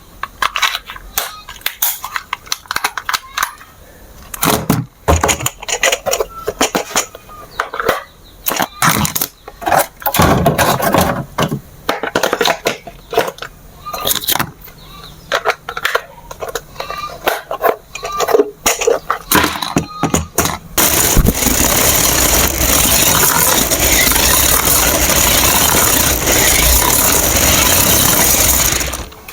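Scattered clicks and rattles of a plastic toy car being handled. About two-thirds of the way in, the car's electric motor and gears start running, loud and steady.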